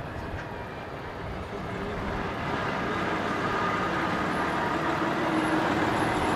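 Volvo car-transporter lorry driving past close by, its engine and tyre noise growing steadily louder as it approaches.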